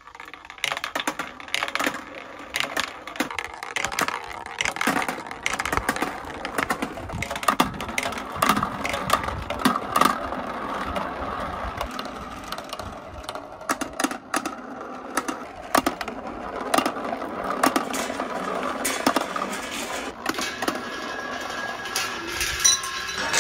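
Small balls rolling and clattering through a handmade marble run: through a clear plastic pipe, along a plastic rain gutter, round spiral buckets and down a steel rail. A steady rolling rumble runs under many small clicks and knocks.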